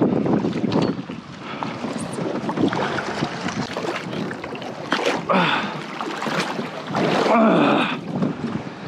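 Water sloshing and splashing against a plastic fishing kayak's hull, with wind buffeting the microphone and a few sharp splashes.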